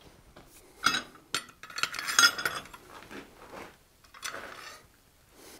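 Steel blacksmithing tools (tongs, a chisel and the bar) clinking and rattling against the anvil as they are picked up and set down: a few short metallic clanks with a brief ring, separated by quiet gaps.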